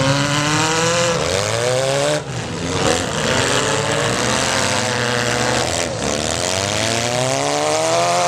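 Engines of small stock cars in a demolition derby revving hard, the pitch climbing, falling away about two seconds in and again near six seconds, then climbing once more.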